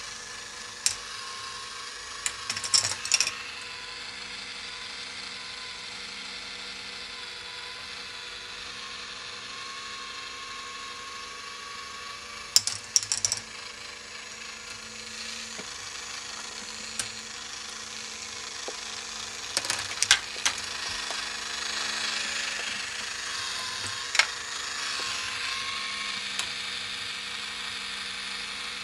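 K'nex ball machine revolving: a steady whir from its motor and plastic gear drive, broken every several seconds by short bursts of sharp clicks and clacks as a ball rolls and knocks along the plastic track.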